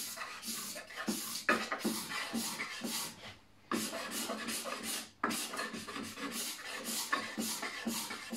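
A hand-held carving blade shaving a root-wood piece in short scraping strokes, about three a second, with a brief pause about three seconds in.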